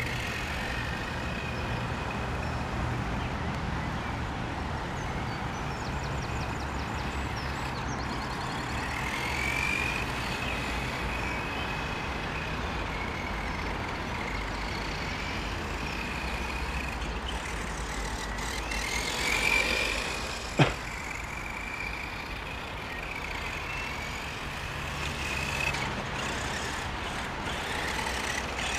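Brushed electric motor and gears of a Helion Dominus 10SC RC short-course truck whining, the pitch gliding up and down with the throttle, over a low steady rumble. One sharp click comes about two-thirds of the way through.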